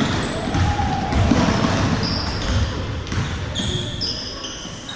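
Basketball game in a gym: a ball bouncing on the hardwood court, with short high squeaks over background crowd noise.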